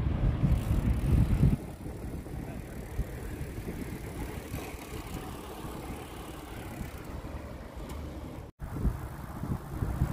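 Riding noise from a bicycle rolling along a paved road: tyre hum and wind on the microphone, louder for the first second and a half and then steady. The sound cuts out for a moment near the end.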